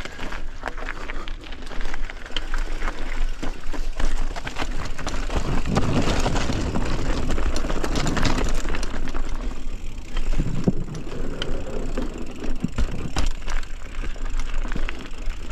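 Mountain bike riding over a dirt and rock trail: continuous tyre noise with many small clicks and rattles from the bike, over a low rumble.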